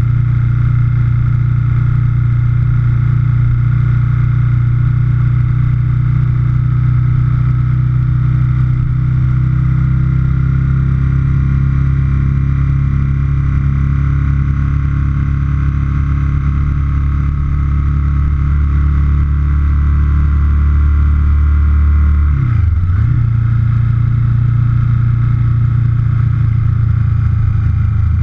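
A 2004 Aprilia Futura's 1000 cc V-twin engine running steadily at road speed, heard through a camera mounted on the fuel tank, with road and wind noise. Near the end the engine note dips sharply for a moment and then picks up again.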